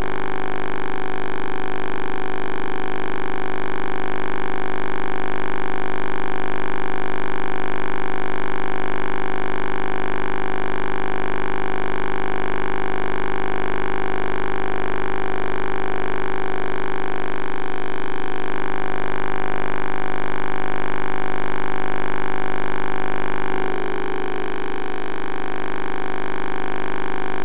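Steady electronic drone of many held tones with a slight regular wobble a few times a second, shifting a little about 23 seconds in.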